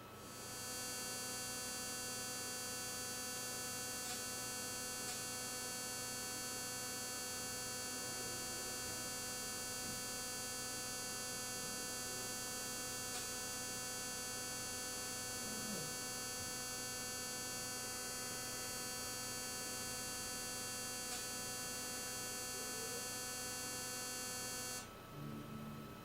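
Speakers giving out a steady electronic buzz with many overtones, triggered by fast-forwarding or going to the main menu on an Apple TV. It comes on just after the start, holds for about 24 seconds and cuts off abruptly about a second before the end.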